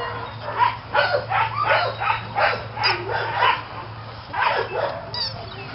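A dog making a quick run of short yips and whines while playing, about ten calls in three seconds, then a couple more near the end.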